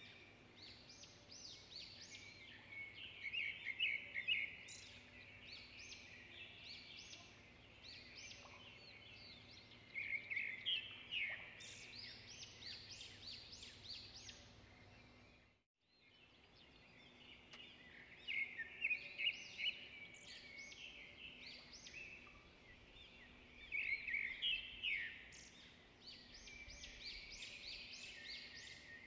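Birds chirping and calling in quick runs of short, high notes, louder in a few bunches, with the sound cutting out completely for a moment about halfway through.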